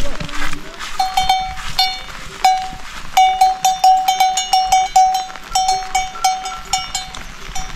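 Metal livestock bells clanking irregularly as the animals move, often several strikes a second. One bell's ringing tone dominates, with a lower-pitched bell sounding now and then.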